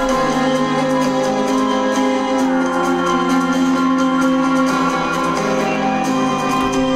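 Music played back through a small portable Bluetooth speaker, with steady held notes.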